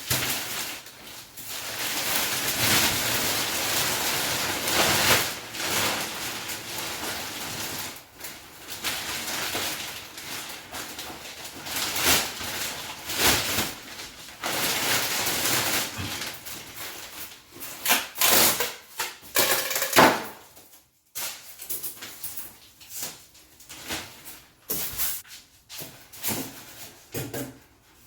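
Packaging being handled and pulled at while unpacking a fridge freezer: long stretches of rustling and scraping, with a run of sharp knocks about two thirds of the way through.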